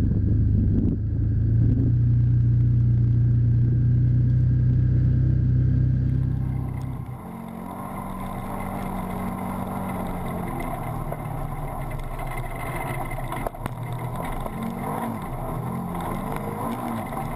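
Can-Am Commander 1000 side-by-side's engine running as it drives along a rough gravel trail. A steady low drone changes abruptly about seven seconds in to a lighter, rattlier sound, with the engine note rising and falling over the bumps and a sharp knock near the middle.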